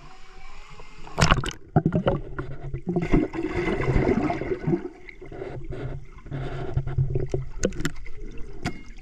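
Muffled pool water sloshing and gurgling against a submerged camera, with a few sharp knocks, the loudest about a second in and another near the end.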